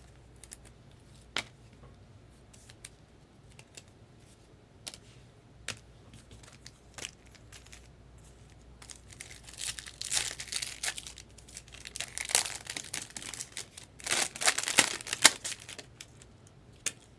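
A trading-card pack wrapper being torn open and crinkled, in two stretches of crackling about halfway through and near the end, after scattered light clicks of cards being handled.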